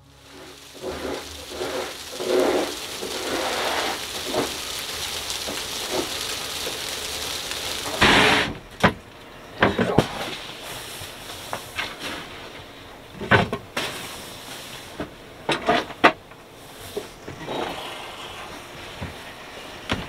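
A steady outdoor hiss. From about halfway through it gives way to a series of sharp wooden knocks and clunks as the wooden companionway hatch boards of a sailboat are handled and someone steps down into the cabin.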